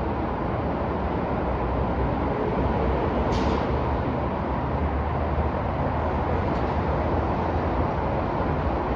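Downtown city street traffic: a steady rumble of passing vehicles, with a short hiss about three seconds in.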